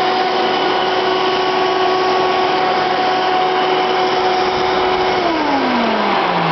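A 12-amp Hoover Runabout upright vacuum running at a steady pitch. About five seconds in, its motor hum starts falling steadily in pitch as it is switched off and winds down.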